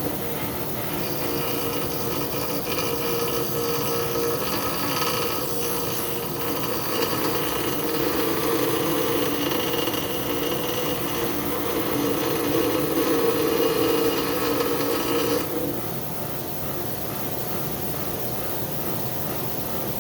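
8-inch bench grinder running, with the metal edge of a handmade screwdriver handle held against the wheel and being ground down. A steady grinding rasp over the motor hum from about a second in until roughly three-quarters of the way through. The workpiece then comes off and the grinder runs on more quietly.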